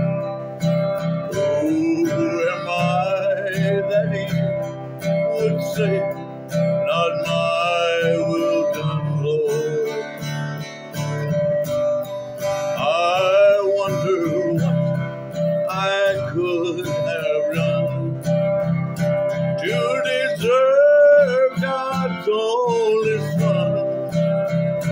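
A man singing while strumming a Martin acoustic guitar in a steady rhythm, his voice rising and falling in long sung phrases over the chords.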